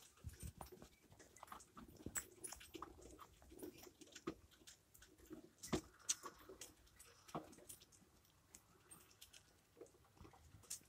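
Faint, irregular scratching and tapping of young rat pups' claws on the cage bars and fleece hammock as they climb about, with one louder tap about halfway through.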